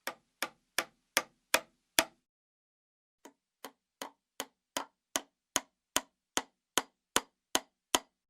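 A steady series of short, sharp knocks or clicks, about two and a half a second, with a pause of about a second after the first six before they resume.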